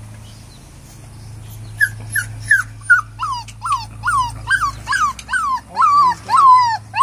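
A four-week-old flat-coated retriever puppy whining in a string of short yelps, each falling in pitch. They start about two seconds in and come two or three a second, the last ones drawn out longer.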